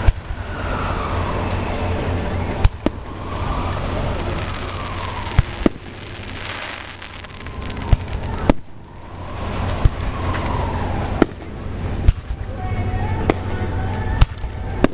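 Aerial fireworks bursting: about a dozen sharp bangs at irregular intervals, some in quick pairs, over a continuous background murmur.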